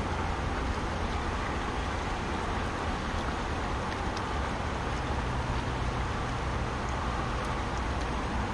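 Steady rushing of a fast-flowing river, with a low rumble underneath.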